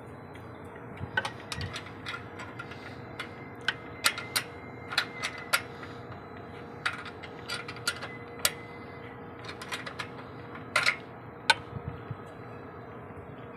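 Irregular sharp metallic clicks and taps from hands working the outdoor radio unit's alignment bracket on its pole mount, over a steady background hiss with a faint steady tone.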